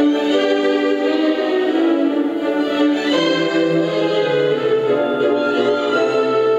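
Classical music with strings, played back through a JBL D44000 Paragon loudspeaker. Sustained notes, with lower bass notes coming in about three seconds in.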